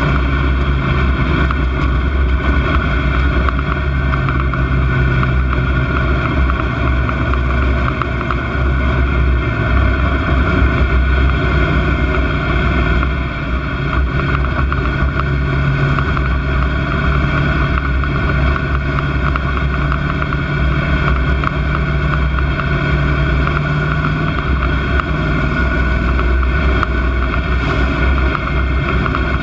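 Dirt track stock car's engine running on track, heard from inside the cockpit: a loud, steady drone with a brief dip about thirteen seconds in.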